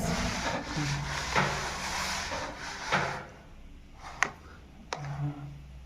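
A kitchen utensil scraping as hmiss, a grilled pepper and tomato salad, is spooned onto the taco filling, rasping for about three seconds, then a few light knocks.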